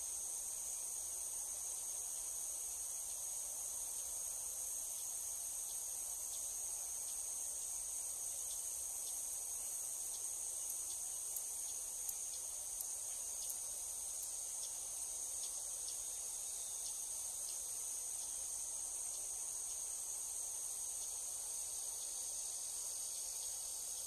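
Steady, high-pitched chorus of trilling insects, continuous and unchanging, with a few faint ticks around the middle.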